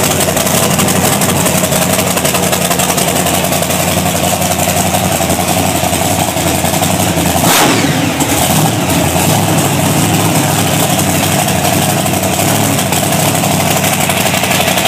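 Racing V8 on an engine run stand with open long-tube headers, idling steadily, blipped once by hand on the throttle linkage about halfway through, its pitch jumping up and falling back to idle.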